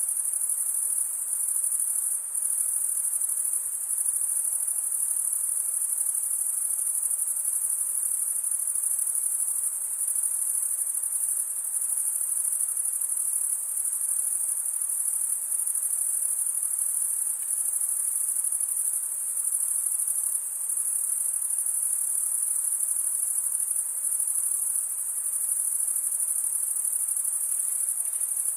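Dense chorus of crickets trilling without a break, a steady high-pitched shrill that holds level throughout.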